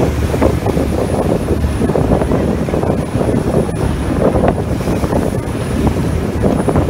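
Motorboat under way at speed: a loud, steady engine drone over the rush of the churning white wake behind it.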